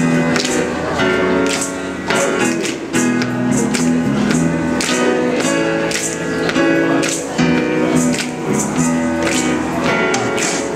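A large mixed choir singing a song together, held and shifting sung notes, with a light steady beat about twice a second.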